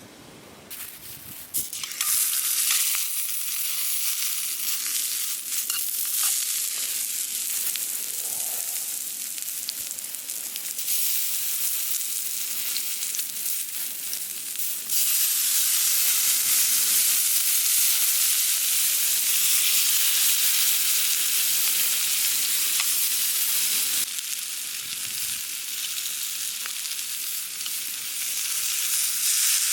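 Food frying in a hot pan, a steady sizzle that grows louder about halfway through and eases back later on.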